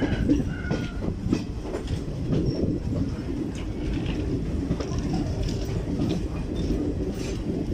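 Passenger train running along the track, heard from an open coach door: a steady rumble with irregular clacks of the wheels over the rails.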